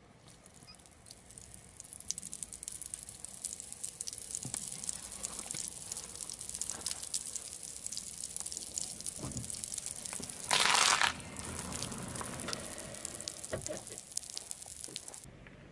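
Crushed candy crackling and fizzing as liquid from a syringe soaks into it, a dense run of fine tiny crackles. About ten and a half seconds in there is one louder hissing burst lasting about half a second.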